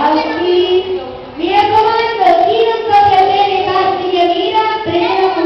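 A child's voice singing a song in long held notes.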